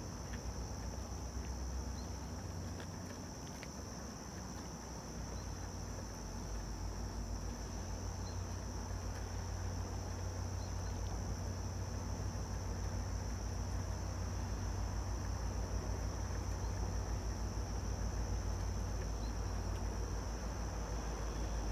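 Insects giving a steady, unbroken high-pitched trill over a low rumble that slowly grows louder.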